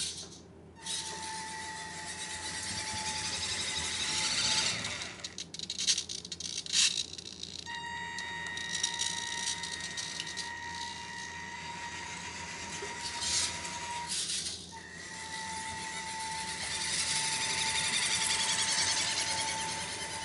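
WPL B16 RC six-wheel military truck pulling a tanker trailer on a hard floor: its small electric motor and gearbox whine at a steady pitch over tyre and gear noise. The whine cuts out briefly three times, once for a few seconds around five to eight seconds in with some sharp clicks and rattles. It grows louder as the truck comes close near the end.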